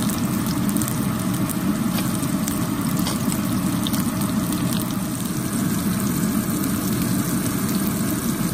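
Herring frying in oil in a non-stick pan, sizzling with scattered small pops and spits. Under it runs a steady low hum, which is the loudest part of the sound.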